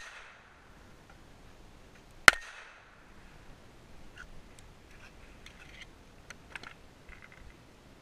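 A single pistol shot from a 1911 firing a handloaded .45 ACP round, a sharp crack with a short echo about two seconds in. A few faint light clicks follow later.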